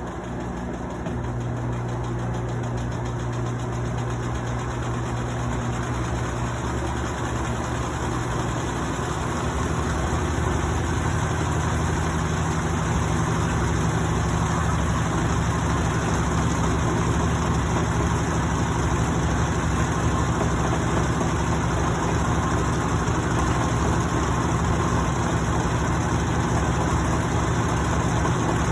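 Cônsul Facilite 11 kg top-load washing machine running, with a steady motor and drum hum after a drum bearing replacement. The hum grows louder over the first half, and its low tone shifts about nine seconds in as the drum speeds change.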